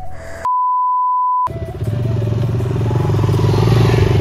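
A steady censor bleep about a second long, then a motorcycle engine running hard and getting louder as it climbs rough ground.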